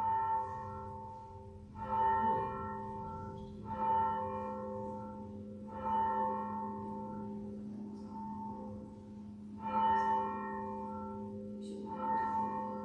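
A single church bell tolling, struck six times at about two-second intervals, each strike ringing on over a steady low hum from the bell.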